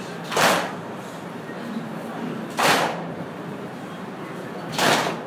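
A group of mourners beating their chests in unison in Bushehri-style matam: three loud, sharp slaps about two seconds apart, over a steady background of voices.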